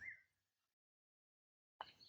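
Bird calls: a chirp trailing off in the first moment, then dead silence, then another sharp call starting near the end.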